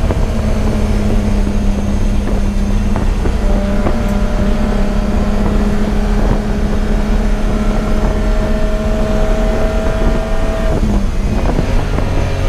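Race car engine held at high, nearly steady revs, its pitch creeping slowly upward as it pulls down a long straight. About eleven seconds in, the note breaks and drops as the driver lifts off.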